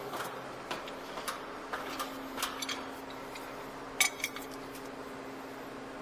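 Metal wrenches clinking and clattering as they are picked up and handled, with a sharper clink about four seconds in, over a steady low hum.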